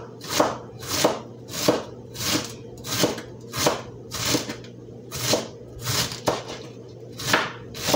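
Kitchen knife slicing cabbage into thin strips on a cutting board, with regular strokes about three every two seconds.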